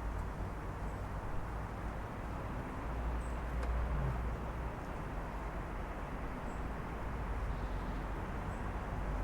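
Steady city traffic rumble heard through an open apartment window, swelling slightly about three seconds in, with a few faint short high chirps scattered over it.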